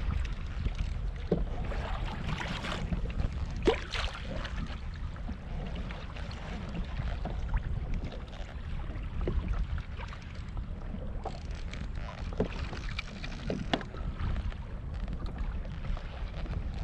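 Wind buffeting the microphone over water lapping against a kayak hull, with a few short sharp knocks scattered through.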